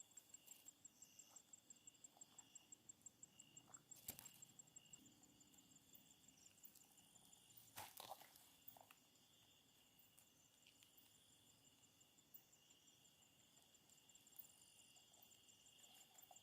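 Faint night insects, crickets among them, chirping steadily: a high, fast-pulsing trill over a steady higher buzz. Two sharp clicks stand out, about four and eight seconds in.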